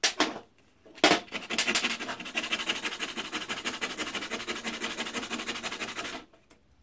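Metal parts of a small clamp-on bench vice being worked by hand: a short scrape, then about five seconds of rapid, even clicking and rasping that stops abruptly.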